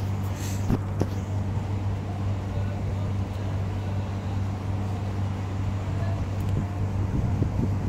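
Steady low hum of an idling motor vehicle engine, with a few short clicks near the start and near the end.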